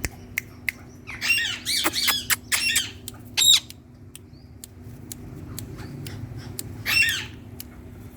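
Indian ringneck parakeet giving a string of high, wavering squawks: several in quick succession in the first three seconds, a loud one about halfway, and another near the end. Sharp clicks come between the calls.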